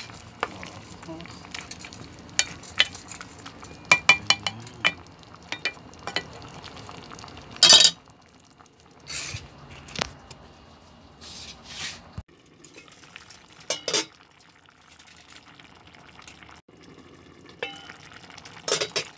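Wooden spatula stirring in a pot of simmering coconut milk, with many light clicks and taps against the pot over a faint steady sizzle. Louder scrapes come at intervals, the loudest about eight seconds in.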